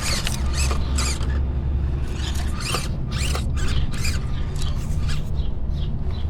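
Axial SCX24 micro RC rock crawler working its way over rocks: its small electric motor and gears running, with irregular clicks, squeaks and scrapes of the tyres and chassis on stone.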